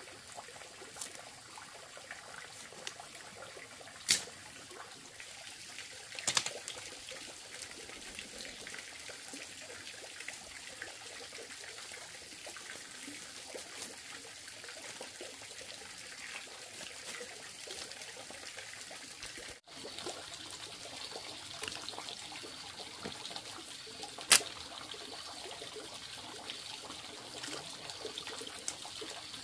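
Water trickling and pouring steadily, with a few sharp clicks or knocks, the loudest one near the end.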